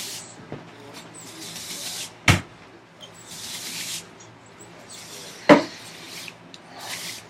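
Hand-tool work on wood in a housing dado: several scraping strokes of about a second each, with two sharp knocks about three seconds apart.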